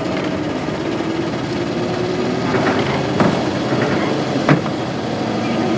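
Isuzu Cubic bus's 8PE1 V8 diesel engine running steadily. Two sharp knocks come about three seconds and four and a half seconds in.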